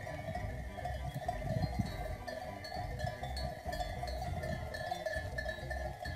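Many livestock bells jangling together without a break, a steady clanking with small tinkles on top.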